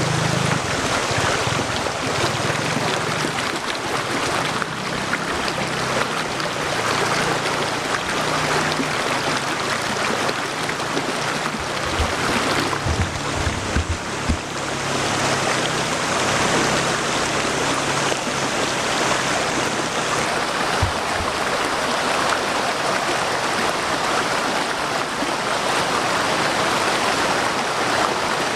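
Waterfall: a steady, dense rush of falling water crashing into a pool.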